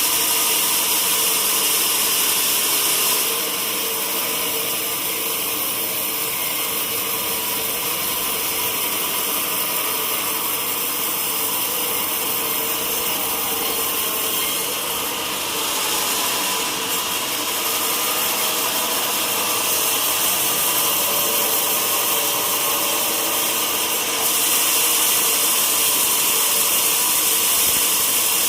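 Sawmill saw running and cutting teak wood: a steady machine whine with a strong high hiss that eases about three seconds in and returns near the end.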